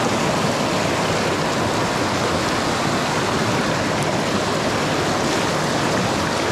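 Fast creek water rushing over and around rocks: a steady, even wash.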